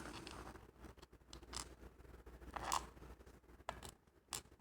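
Small metal parts of a disassembled Mul-T-Lock Junior being handled: a few short scrapes and clicks, about one a second, the loudest near the middle.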